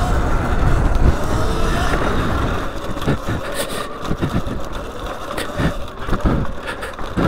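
Sur Ron Light Bee X electric dirt bike ridden fast: wind rush on the mounted camera and tyre rumble over the dirt track. From about three seconds in, the rumble gives way to a string of sharp knocks as the tyres roll over uneven rock.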